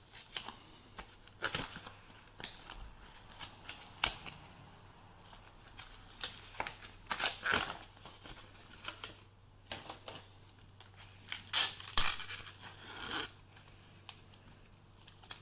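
Retail packaging of a new SSD being opened by hand: on-and-off tearing and crinkling with sharp plastic clicks, the sharpest snap about four seconds in and a busy cluster of rustles around twelve seconds.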